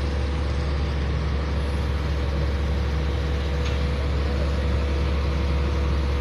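Engine running steadily at an even speed, with a deep, constant hum.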